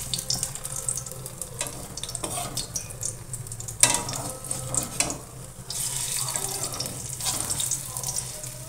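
Veg-egg balls shallow-frying in a little oil in an iron kadai, sizzling steadily with small crackles. A wooden spatula clicks and scrapes against the pan as they are turned, loudest about four seconds in.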